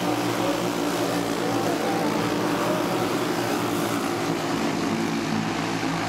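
Pack of racing dirt karts with Briggs & Stratton Animal single-cylinder four-stroke engines running at race speed, their engines overlapping in a steady drone.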